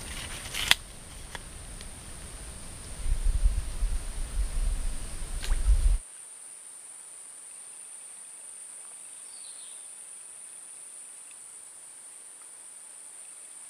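Steady high-pitched insect chorus buzzing throughout. For the first six seconds it sits under a low rumble and a few knocks on the microphone, loudest from about three seconds in, which cut off suddenly, leaving the insect buzz alone.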